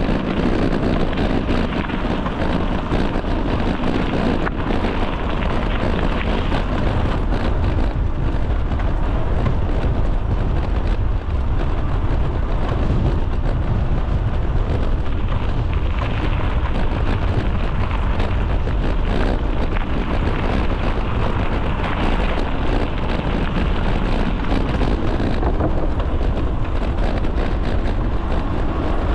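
Wind buffeting the microphone of a camera on a moving bicycle: a steady, deep rush with no break.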